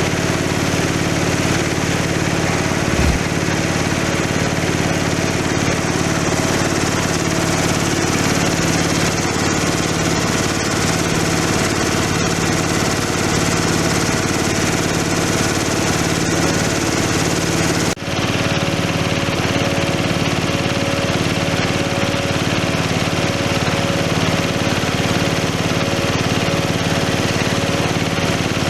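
Rice husk grinding machine running steadily, its motor drone mixed with a continuous dense grinding hiss as coarse husk is milled into fine bran. A brief dip about eighteen seconds in.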